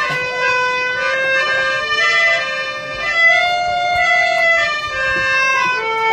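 Harmonium playing a melody in long, held reed tones that step from note to note.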